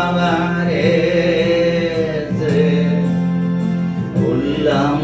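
Tamil Christian worship song: a voice sings a slow, long-drawn line with a wavering pitch over steady sustained instrumental accompaniment, starting a new phrase near the end.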